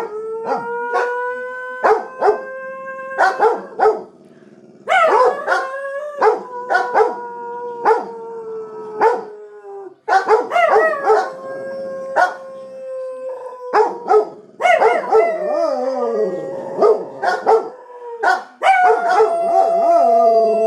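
Dogs howling together, a bull mastiff among them: long drawn-out howls that start afresh about every four to five seconds, with several voices at different pitches overlapping near the end, and short sharp barks scattered through.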